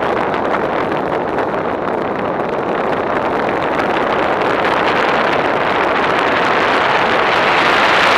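Airflow rushing over the microphone of a camera mounted on an aircraft in flight: a steady wind noise with no clear engine tone, growing a little louder and brighter near the end as the aircraft banks.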